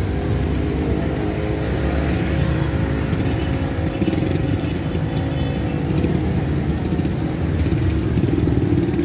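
Road traffic: engines of jeepneys, a van and a motorcycle running close by, a steady low rumble with a steady engine hum that fades after the first few seconds.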